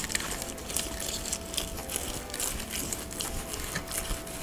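Knife sawing through the crusty, seasoned bark of a smoked prime rib roast on a wooden cutting board: a run of short, irregular scratchy crackles as the blade cuts down through the slice.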